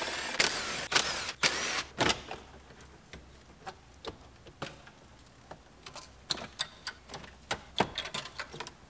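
Plastic dash trim and the radio being pried and pulled out of a car dashboard: a couple of seconds of plastic scraping and rubbing, then scattered sharp clicks and taps of clips and parts.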